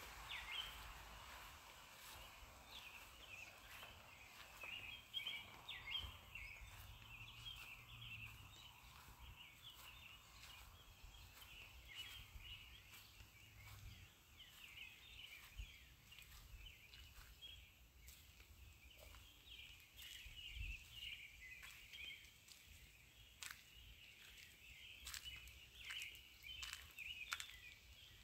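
Faint chirping like distant birdsong, many short calls overlapping, with a few sharp ticks near the end.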